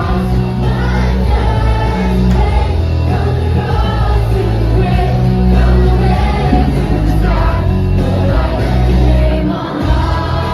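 A large group of children singing together over loud music with a heavy bass line.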